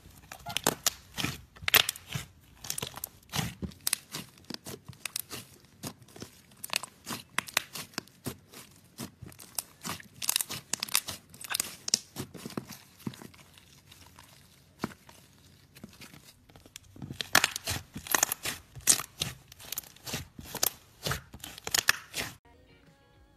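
Thick white clay slime with yellow clay being kneaded and stretched by hand: a dense run of sticky crackles and pops as it is pulled apart and squeezed, stopping suddenly near the end.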